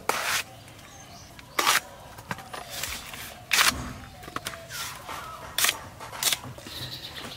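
Water taro stalks being sliced on a boti's fixed curved blade: about six crisp, sharp cuts at uneven intervals.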